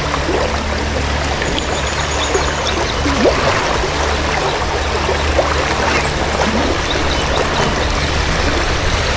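Steady rush of fast, shallow creek water running over a stony bed, with scattered short gurgles.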